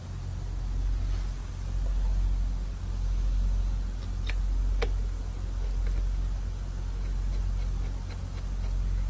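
Low, steady rumble of an idling engine that swells and eases about once a second. A few light clicks and a short squeak of hand work on the sensor come about halfway through.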